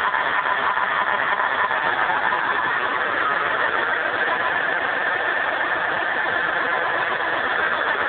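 Electronic RC sound generator playing a synthesized eight-cylinder diesel engine sound, running steadily with no change in revs.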